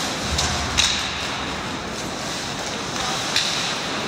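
Ice hockey play: a steady hiss of skates on the ice with a few sharp clacks of sticks and puck, the loudest about a second in, just after a low thud.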